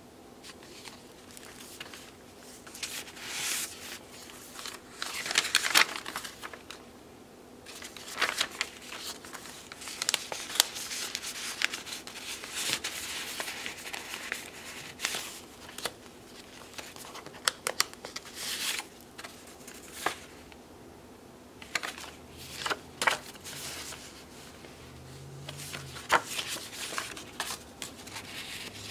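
Paper rustling and crinkling as hands slide tags out of pockets and turn the stiff, layered pages of a handmade junk journal. Now and then there is a sharp paper snap or tap.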